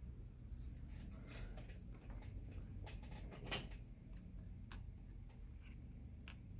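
A few faint, scattered small clicks and taps from handling the tracker's small parts and tools, over a steady low hum.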